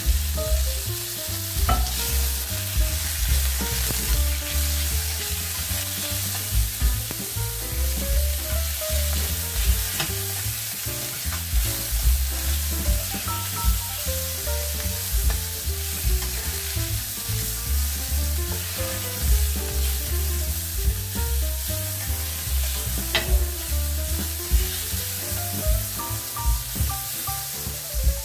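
Cubes of venison sizzling steadily as they sear in a very hot stainless-steel pan, with the pieces being turned and shifted, over background music with a pulsing bass.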